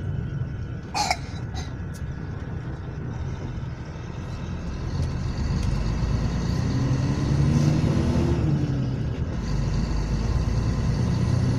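Mercedes-Benz O500 RSD coach's diesel engine running steadily, with a brief sharp sound about a second in. About halfway through, the engine note rises for a couple of seconds, then drops back, and the sound gets a little louder toward the end.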